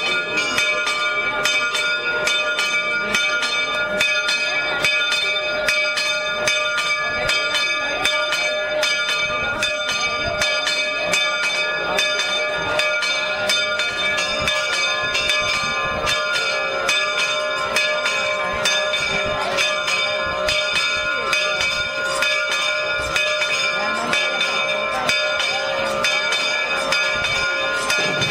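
Chapel bell ringing continuously, struck in rapid repeated strokes, with crowd voices underneath.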